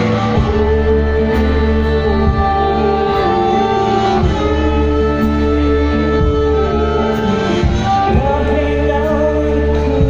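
Live blues band playing, with acoustic guitar, keyboard, drums and harmonica under a woman's voice singing long held notes.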